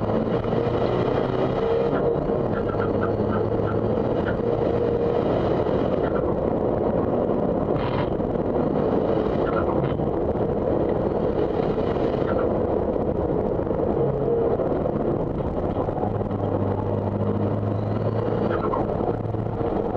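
Isuzu D-MAX race pickup's 3.0-litre common-rail turbodiesel running hard under acceleration, heard from inside the stripped race cabin with heavy road and wind noise. The engine note breaks briefly every few seconds as the driver shifts gears. Near the end it drops lower as the truck slows for a corner.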